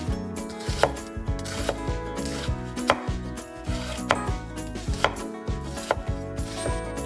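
Kitchen knife chopping vegetables on a cutting board: separate sharp strokes, roughly one a second at an uneven pace.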